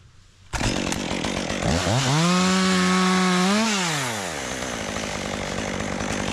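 Chainsaw revving up, held at high speed for about two seconds, then dropping back toward idle.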